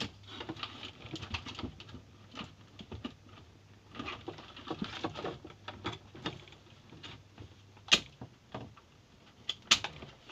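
Handling noise of aquarium accessories being unplugged: irregular clicks, knocks and rustling, with two sharp clicks near the end. A steady low hum cuts out at the first of the sharp clicks.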